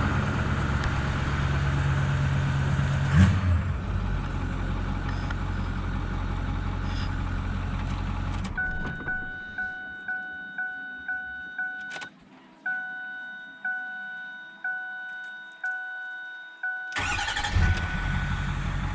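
The Ford 6.4 L Power Stroke V8 diesel runs at idle, then is shut off about eight seconds in. With the engine off, the dashboard warning chime dings over and over, about one and a half times a second. Near the end the diesel is restarted and settles back to idle; this is an attempt to clear a battery warning light that came on after the alternator was replaced.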